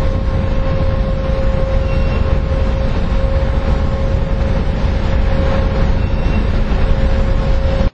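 Loud, steady low rumble with a constant droning hum held throughout, from a docking oil tanker's machinery mixed with wind on the microphone.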